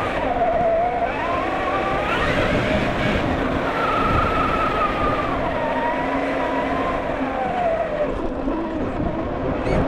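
Traxxas TRX4 1/10-scale RC crawler's electric motor and geared drivetrain whining, the pitch rising and falling as the throttle changes.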